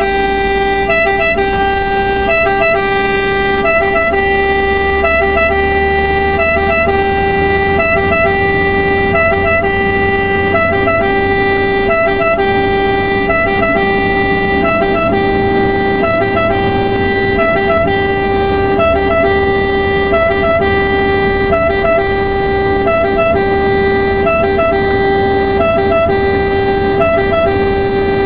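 Italian 118 ambulance siren sounding continuously in a steady pattern that repeats about every two-thirds of a second, heard from inside the cab, with engine and road rumble beneath.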